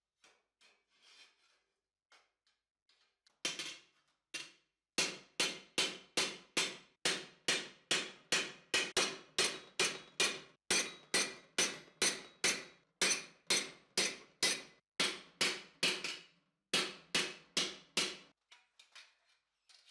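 Hand hammer striking a curved steel armour plate over a steel stake, each blow a sharp metallic clang with a short ring. Two blows come a few seconds in, then a steady run of about two and a half blows a second, with one brief pause near the end.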